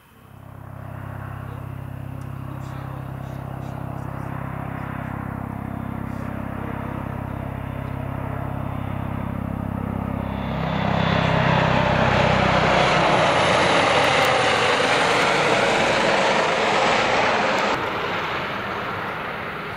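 Eurocopter EC 135 helicopter approaching, with a steady low rotor hum. From about ten seconds in, a much louder rushing whine of its twin turbines and shrouded Fenestron tail rotor builds as it comes close. The noise eases off near the end.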